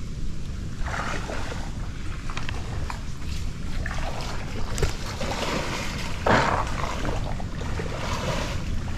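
Wind buffeting the microphone as a steady low rumble, with a few short rustling swishes. The loudest swish comes about six seconds in.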